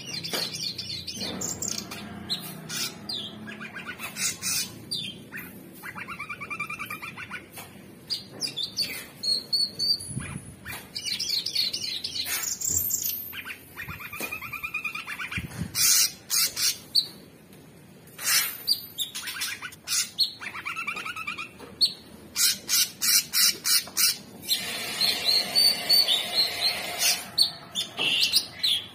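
Male orange-bellied leafbird (Chloropsis hardwickii) singing a long, varied song: high whistled notes mixed with fast runs of repeated short notes.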